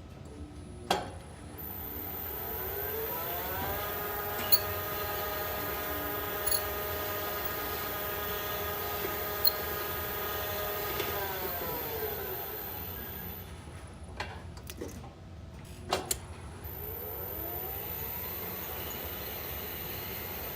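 Lift (elevator) drive: a sharp loud click about a second in, then the motor's whine rising in pitch as the car speeds up, holding steady for several seconds and falling away as it slows. A cluster of clicks follows about two-thirds of the way through, and the whine starts rising again near the end.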